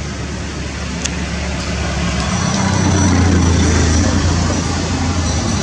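A motor vehicle's engine running with a steady low rumble, which grows louder a little over two seconds in.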